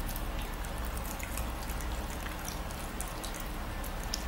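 Red fox eating small pieces of turkey: scattered small mouth clicks and smacks as it licks and chews.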